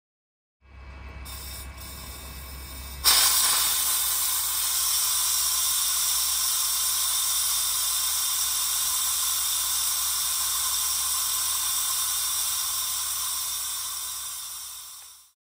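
Keg filling frame's filling line hissing steadily once its valve is opened, as the keg depressurises while it fills with product. A faint low hum comes first, then about three seconds in the loud hiss starts abruptly and holds, fading away near the end.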